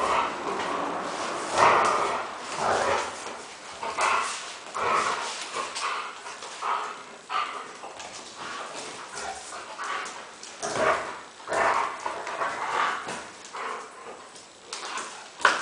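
Vizsla dog barking and whining in short, irregular outbursts while playing tug-of-war with a rope toy, its claws clicking and scrabbling on the tile floor.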